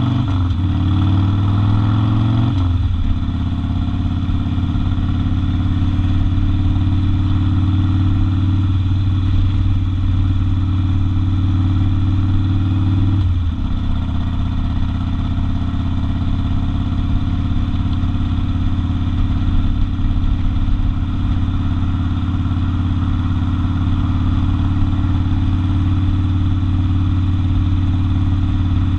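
Harley-Davidson XL 1200 Custom's air-cooled V-twin running steadily while cruising on the road, with two short breaks in the engine note, about two and a half seconds in and again about halfway through.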